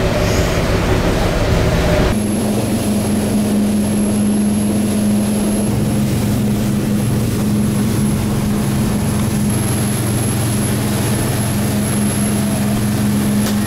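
Motor yacht's engines running steadily at cruising speed, a constant hum over the rush of water and wind. About two seconds in the sound shifts abruptly to a stronger, steady low drone.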